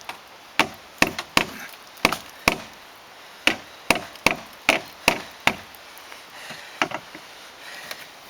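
Hand hammer striking repeatedly, about a dozen sharp blows two or three a second in short runs with brief pauses, knocking a stubborn part loose during disassembly of a car.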